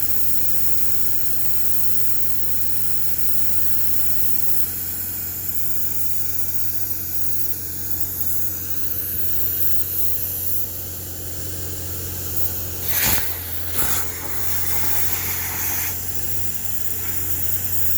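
An engine running steadily, with a steady hiss over it. Two sharp knocks come a little under a second apart about two thirds of the way through.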